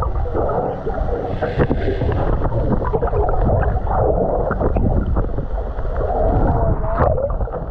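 Muffled water noise picked up underwater beside a boat hull: a deep, steady rumble with short squeaky, warbling chirps and a few clicks.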